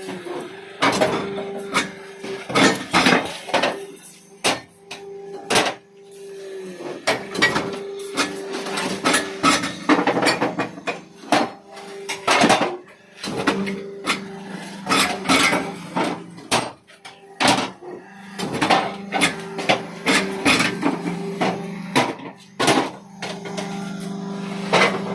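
Irregular knocks and clacks of hard blocks and hand tools in paver-block construction work, some close together and some a second or more apart, over a steady machine hum.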